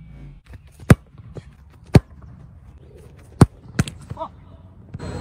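A soccer ball being struck on grass: four sharp smacks at uneven gaps, with fainter knocks between them.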